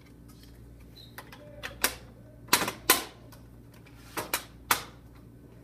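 Aluminium base of a retractable banner stand being handled on a wooden table: a run of sharp metal clicks and knocks, loudest about halfway through.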